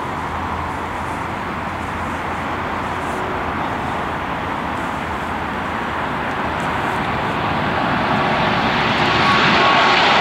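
Four-engine Airbus A340 jet airliner on landing approach, its engine noise growing steadily louder as it draws closer, with a steady whine coming in near the end.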